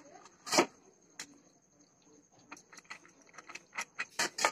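Soaked split chana dal being stirred by hand in a steel strainer: irregular clicks and taps of the damp lentils against the metal, with one louder knock about half a second in and a quicker cluster near the end.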